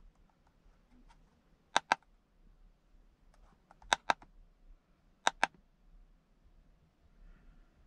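Plastic buttons on a handheld OBD-II code scanner being pressed to step through its menus: three sharp double clicks, a click for the press and one for the release, spread over a few seconds.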